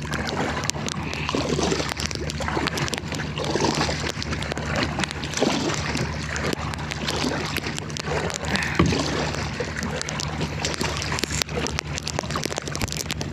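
Water sloshing and splashing around a paddled canoe in rough, windy water, with small irregular splashes throughout and a steady low hum of wind on the microphone beneath.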